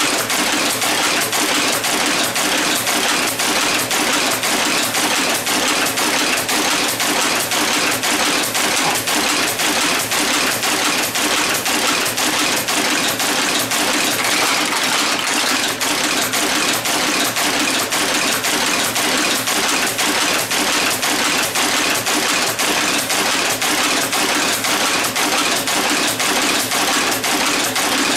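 Monotype composition caster running and casting type from molten antimony–tin type metal. It makes a loud, steady mechanical clatter, with a rhythm of evenly spaced strokes repeating several times a second and never stopping.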